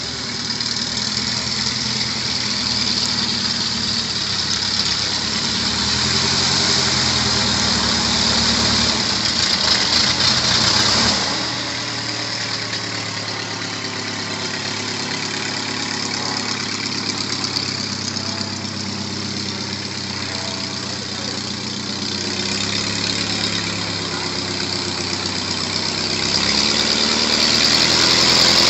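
Piston engines of Bücker biplanes running at low power as they taxi. The engine note swells and fades as the planes pass close, and grows louder again near the end.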